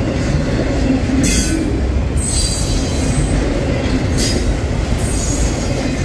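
Freight train cars rolling past with a steady low rumble, broken four times by short high-pitched bursts of wheel noise from the rails.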